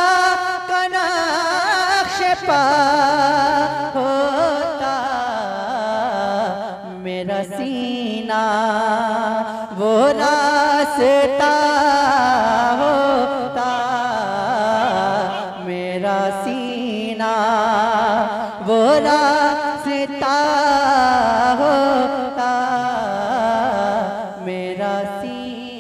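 Male voice singing a naat in long, drawn-out melodic phrases with heavy vibrato, with no clear words.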